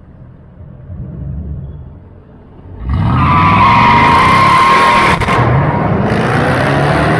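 Car engine with an unmuffled exhaust, rumbling at low revs, then about three seconds in revved hard, with tires squealing and spinning in a burnout.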